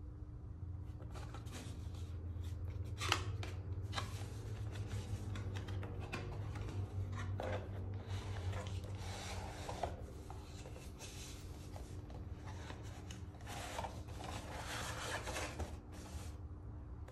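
Cardboard watch box being handled and opened: the outer sleeve sliding off with rubbing and scraping, a few light taps, and paper and card rustling near the end. A steady low hum runs underneath.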